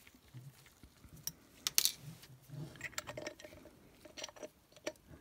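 Light metallic clicks and clinks of machined lightsaber hilt parts being handled and worked with a hex key, in an irregular string, the loudest a little under two seconds in.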